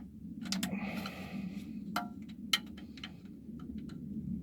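Metal hand tools clinking: a ratchet and steel socket knock together and ring briefly, then a few sharp clicks and taps.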